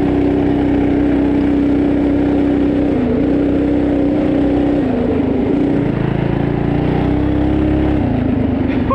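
Coleman CT200U mini bike's small single-cylinder four-stroke engine running at steady high revs under way, with brief dips in engine speed about three and five seconds in.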